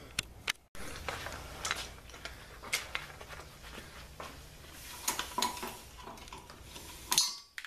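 Scattered metal clicks and scrapes of a flat screwdriver prying at the cap and U-clip on a riding mower's rear wheel hub, with a quick rattle of clicks near the end.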